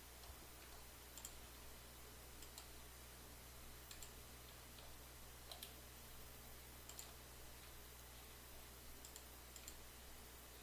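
Faint computer mouse clicks, about seven, spaced a second or more apart, over a steady low electrical hum and hiss.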